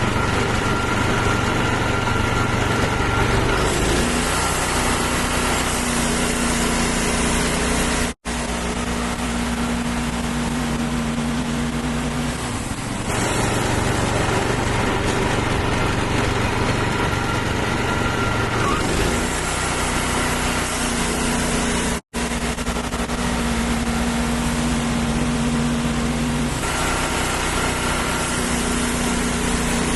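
Wood-Mizer portable sawmill's engine running steadily while sawing black walnut logs, its tone shifting every several seconds. The sound cuts out for an instant twice.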